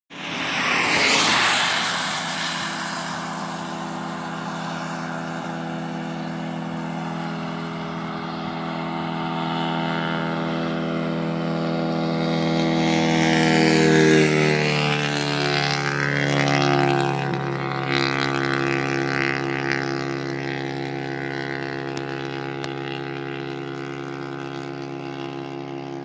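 Road traffic on a highway. A vehicle rushes past about a second in, then a steady engine drone swells as another vehicle passes about halfway through and fades away afterwards.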